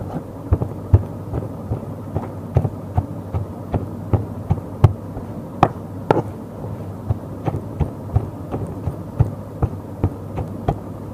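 Fried ridge gourd being mashed into chutney in a heavy pan: irregular soft knocks and clicks, about two a second, against the pan, a few of them sharper and louder around the middle.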